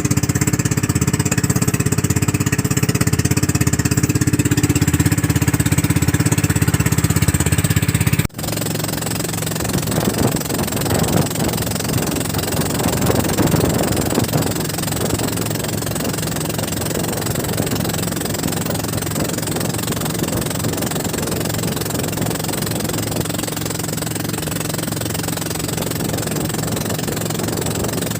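A fishing boat's engine running steadily with a hard, knocking beat. It cuts off abruptly about eight seconds in, and the engine carries on with a noisier, rougher sound mixed with water noise.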